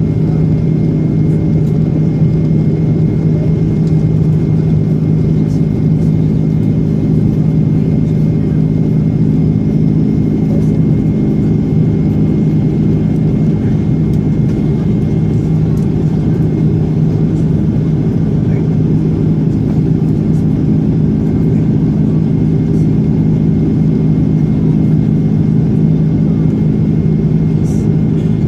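Steady drone in the cabin of an Airbus A330-300 jet airliner, from its engines and the airflow: a low hum with a few steady tones in it.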